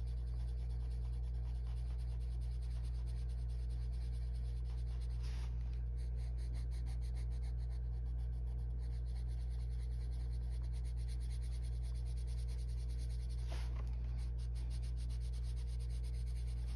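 Arteza colored pencil scratching across paper in quick repeated short strokes, layering color. A steady low hum runs underneath.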